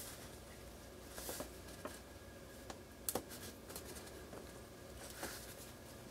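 Faint handling noises of fingers working small motors in foam mounts on a carbon-fibre micro quadcopter frame: light rustles and taps, with a sharp double click about three seconds in.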